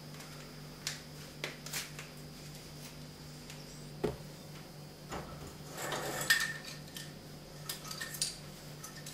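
Plastic measuring cups and other kitchen utensils being handled at a counter: scattered light clicks and knocks, with a longer clattering rattle about six seconds in. A steady low hum runs underneath.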